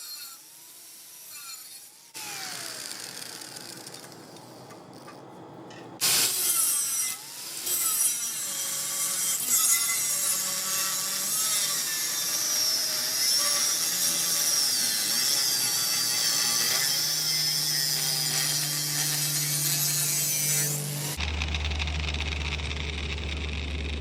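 Angle grinder with a cut-off wheel cutting through a steel lawnmower blade, a loud grinding hiss with a high whine that wavers as the disc is loaded. Near the end the sound changes abruptly to a lower, steadier hum.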